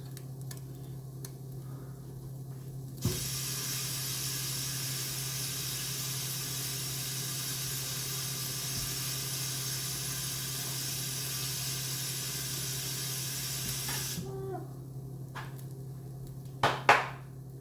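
A steady rushing hiss switches on abruptly with a knock about three seconds in and cuts off abruptly about eleven seconds later, over a low steady hum. A few knocks follow near the end.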